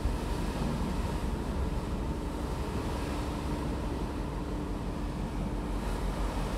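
Passenger ferry under way: a steady low engine drone with a constant hum, under an even rush of wind and water.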